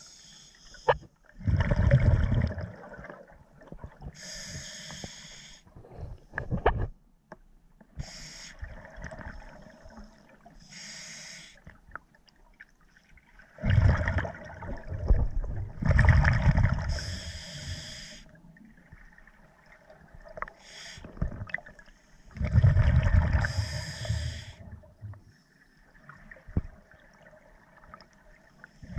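Scuba diver breathing through a regulator underwater: short hissing inhalations alternate with three long bursts of exhaled bubbles, the loudest sound, about a tenth of the way in, near the middle and about four-fifths of the way through.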